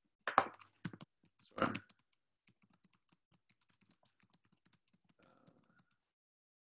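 Typing on a computer keyboard: two louder clatters of keys in the first two seconds, then faint, quick keystrokes.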